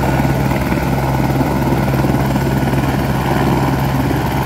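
An AS350-type light turbine helicopter running on the pad with its rotor turning: a steady, loud drone with a low hum under the rush of the turbine and blades.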